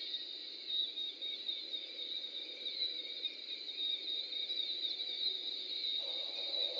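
Ambient field recording: a dense, steady, high-pitched chorus like massed birds or insects over a faint low rush. A lower hum of several steady tones comes in about six seconds in.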